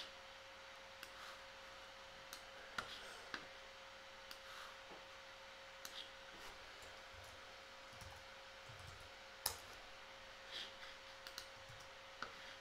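Scattered, irregular clicks of a computer mouse and keyboard, the loudest about nine and a half seconds in, over a faint steady hum.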